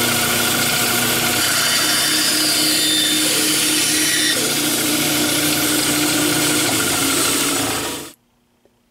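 Powermatic 14-inch bandsaw running steadily while a board is fed through the blade on the miter gauge, making a 90-degree crosscut. The sound stops abruptly about eight seconds in.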